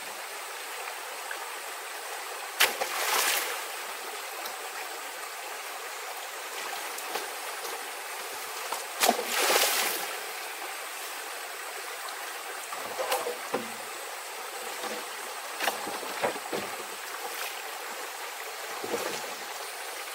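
A stream running steadily. Twice, about three and nine seconds in, a sharp tap is followed by a brief louder rush of water-like noise, and a few fainter knocks come later.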